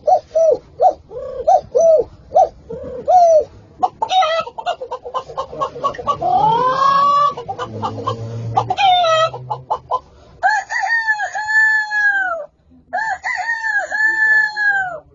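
Chickens: a run of short clucks, then a quick cackle and a rising call, and near the end a rooster crowing twice, each crow about two seconds long.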